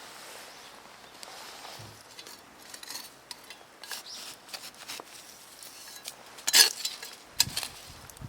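A run of irregular light knocks and clinks, like objects being handled and set down, with the loudest knock about six and a half seconds in.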